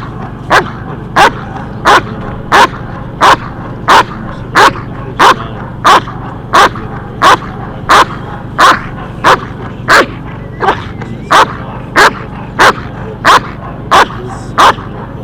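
German Shepherd barking loudly in a steady, unbroken rhythm, about one and a half deep barks a second, each the same length and evenly spaced.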